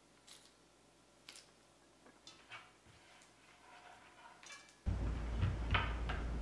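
Faint light ticks of chopped bell pepper pieces dropping into a stainless steel pot. About five seconds in, a steady room hum comes up and a kitchen knife taps twice on a cutting board while cutting a zucchini.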